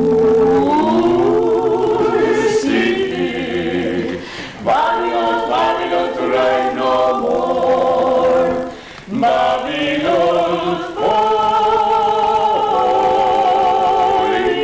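A small group of men and women singing a cappella in harmony, several voices holding long notes with vibrato, with brief breaks between phrases about four and a half and nine seconds in.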